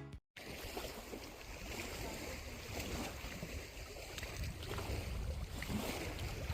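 Lakeside outdoor ambience: a steady wash of noise with low wind rumble on the microphone and a few faint clicks.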